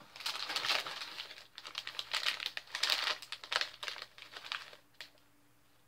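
Foil snack bag crinkling and crackling as it is lifted out of a box and handled, stopping about five seconds in.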